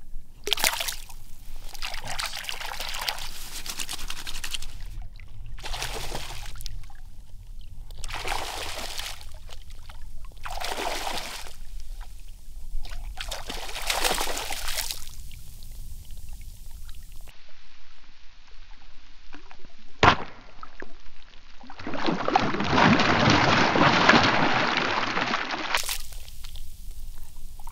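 Shallow saltwater splashing and sloshing as a speckled trout thrashes at the surface, in short bursts about one every second or two. A single sharp click comes past the middle, then a longer, louder stretch of splashing near the end.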